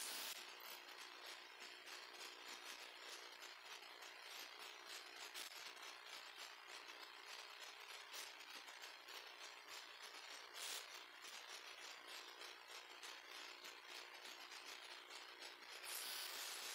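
Near silence: a faint steady hiss with a fine crackle and a couple of faint clicks, and slightly louder hiss near the end.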